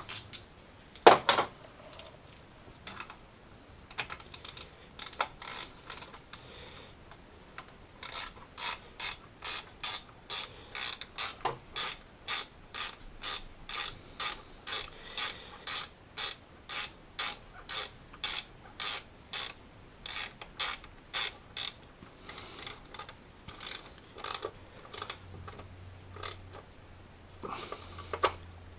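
Hand ratchet clicking as a bolt is wound in, a few scattered clicks at first, then a steady run of about two clicks a second that thins out near the end.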